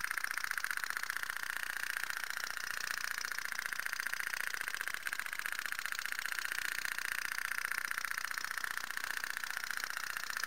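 Tin pop-pop (phat-phat) steam boat sputtering with a rapid, even putt-putt. Water boiling in its small boiler shoots out of the outlet pipe as steam and is drawn back in through the inlet pipe, and each pulse makes the thin tin sound.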